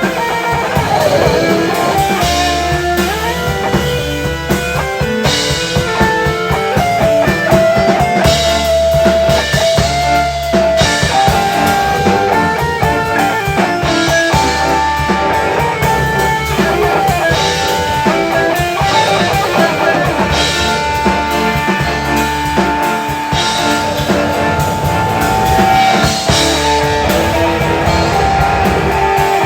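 Instrumental rock music: guitar and drum kit playing, with a lead line of long held notes over them and no vocals.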